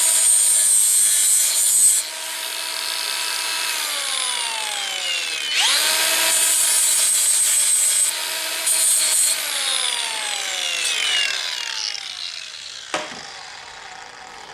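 Electric grinder deburring drilled metal: the motor spins up and grinds with a gritty hiss, then winds down, and the same happens a second time. A single knock near the end.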